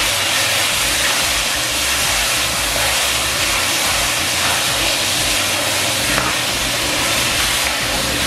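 Pieces of wild hog sizzling steadily in hot oil and caramelized brown sugar in a metal pot, with a metal ladle stirring and turning them: the meat browning at the start of a stew.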